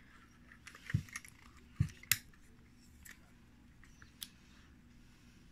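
Scattered sharp clicks and a couple of light knocks from handling a Konica C35 35mm film camera while loading a roll of film into it.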